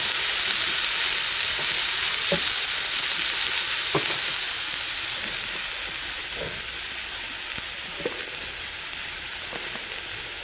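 Vegetables sizzling as they brown in the stainless inner pot of an electric programmable pressure cooker on its sauté setting, a steady high hiss, with a few faint knocks.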